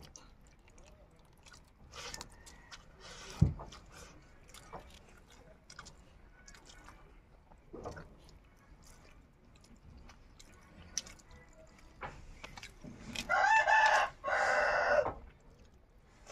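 A rooster crowing once near the end, one long call of about two seconds with a short break partway through. A few seconds in there is a single sharp thump.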